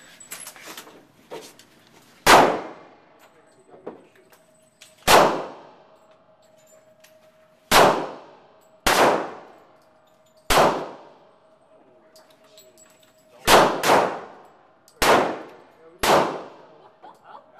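Semi-automatic pistol shots at an indoor range: nine shots at uneven intervals of one to three seconds, two of them close together past the middle, each ringing out in the enclosed range.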